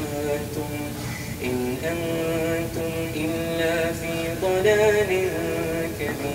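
A single voice chanting a slow melody in long held notes that step up and down in pitch, playing in the background.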